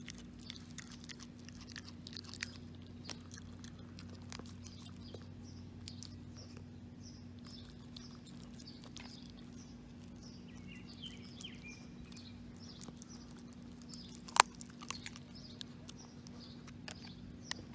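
A Maltese dog chewing and crunching a raw chicken leg quarter, bone and all, with a steady run of small wet crunches and clicks and one sharp, loud crack about fourteen seconds in.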